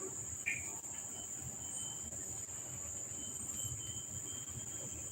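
Steady high-pitched insect chirring over low background noise.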